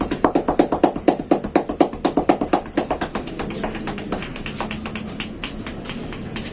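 Rapid percussive massage strokes by a barber's hands: a fast, even run of slaps, about seven or eight a second. They are loudest for the first three seconds, then go on lighter.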